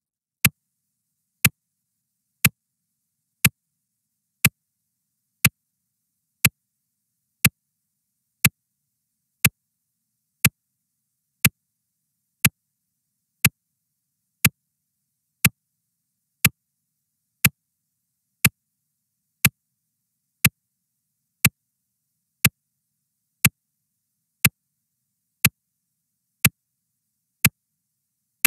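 Clock tick sound effect: one sharp tick every second, each marking a second counted down by a countdown timer, with silence between the ticks.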